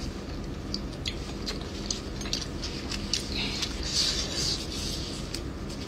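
Close-up eating sounds: chewing and lip smacks with scattered small clicks, and a short rustle about four seconds in as gloved hands handle food in the pot.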